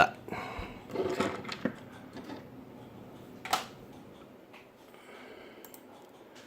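A few light clicks and taps from a computer mouse and keyboard, one sharper click about three and a half seconds in, over the faint steady hiss of the PC's cooling fans.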